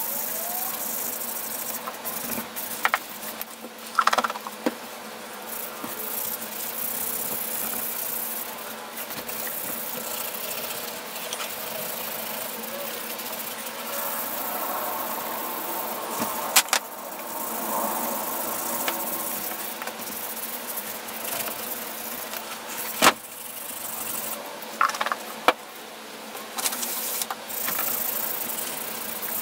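Abrasive pad scrubbed by hand over the metal housing of a vintage Porter-Cable BB10 belt sander, a steady rasping scrub with a few sharp knocks as the pad or hand catches the casing.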